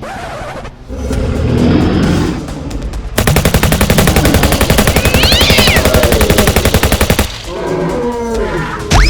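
Rapid machine-gun fire sound effect, a dense run of shots lasting about four seconds and starting a few seconds in, with cartoon animal cries before and after it.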